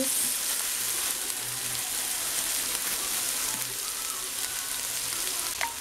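Diced plantain, green apple and raisins frying in a pan, with a steady sizzle and a light click near the end.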